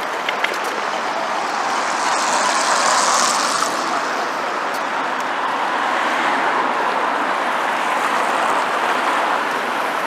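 City street traffic noise: a steady rush of cars on the road, with one vehicle passing louder about two to four seconds in.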